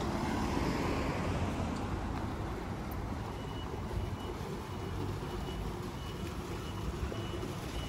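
Street traffic: a vehicle's engine passes close, loudest in the first second or two, then a short high electronic warning beep repeats about twice a second.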